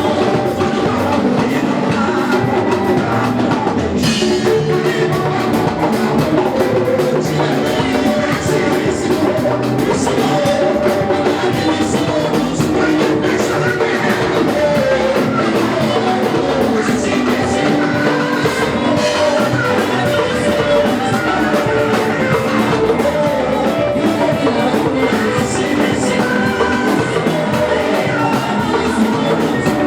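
Live worship music: a band with drum kit and guitar playing a steady beat, with singing over it.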